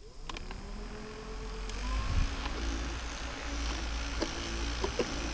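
Small 12-volt clip-on electric fans switched on, their motor whine rising in pitch as the blades spin up, then running steadily with a rush of moving air. A few sharp clicks from the switches and housings are handled along the way.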